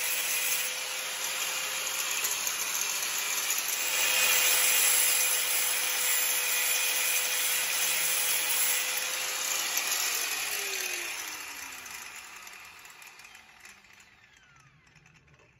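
Small corded angle grinder with a cutting disc running and cutting through the metal collar on a vertical antenna tube: a steady whine over a rough hiss. About ten seconds in it is switched off, and the whine falls in pitch and fades as the disc spins down.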